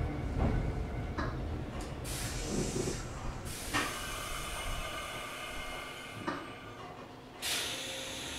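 Mizuma Railway 1000 series electric train's low running rumble fading out as it comes to a stop, with several bursts of compressed-air hiss, the loudest about seven and a half seconds in.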